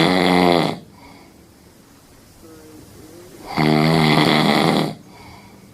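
Husky snoring: two loud, buzzing snores, each a little over a second long, one ending under a second in and the next starting about three and a half seconds in, with quiet breathing between.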